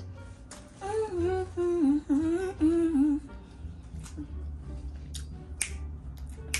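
A person hums a short, wavering tune with the mouth closed for about two seconds. Then come a few sharp finger snaps near the end, over a low background beat.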